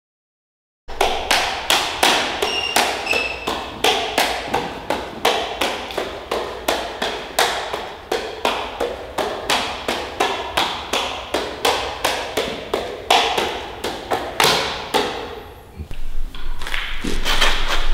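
Juggling clubs slapping into the hands as they are caught, a steady run of sharp taps about three a second. The taps stop near the end, and a low swell of sound rises in their place.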